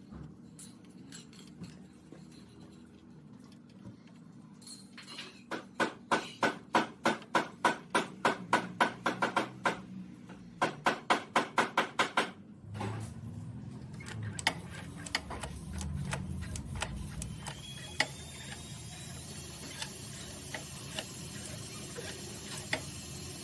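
Two runs of sharp repeated taps, about three or four a second, with a short break between, followed by handling rumble and a few scattered clicks.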